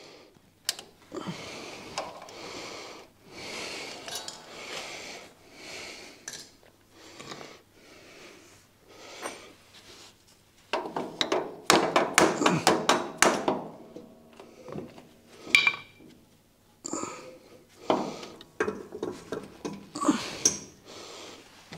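Hand tools clinking and scraping on the metal fittings of a Deutz D8006 tractor's brake master cylinder as it is being unbolted, with a run of rapid metallic clicks about halfway through.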